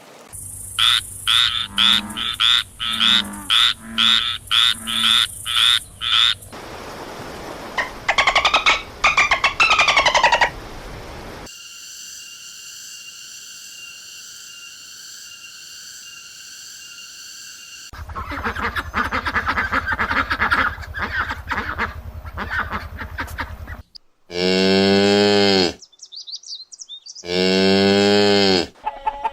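A run of animal call recordings. First comes fast, regular frog croaking, about three croaks a second for six seconds. Other calls and a steady high tone follow, and the run ends with two long, low calls like cattle mooing.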